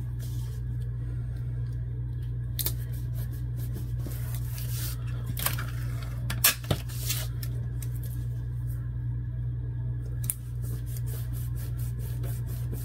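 Clear tape being pulled off a desktop tape dispenser and paper card being handled, heard as scattered clicks and rustles with a quick run of ticks near the end, over a steady low hum.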